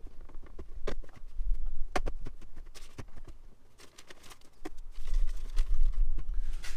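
Plastic glovebox and dash trim of a Toyota Prado being handled and fitted back into place: a few sharp plastic clicks and knocks over dull handling thumps.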